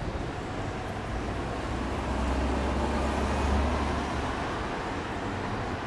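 City street traffic noise, with a deep engine rumble from a heavy vehicle going by that swells from about a second in and fades near the four-second mark.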